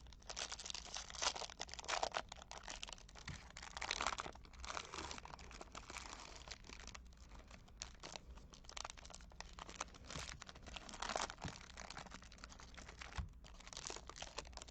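Packaging of a trading card pack crinkling and tearing as it is opened and handled, in irregular rustles with no steady rhythm.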